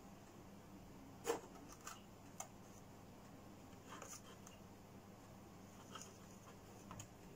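Near silence: faint room tone with a handful of soft taps and clicks from hands handling small terracotta pots, the sharpest about a second in.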